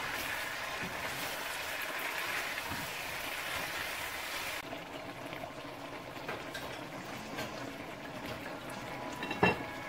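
Chicken curry simmering and bubbling in a nonstick pan as it is stirred with silicone spatulas. About halfway through, the hiss drops to a softer bubbling, and a single sharp knock comes near the end.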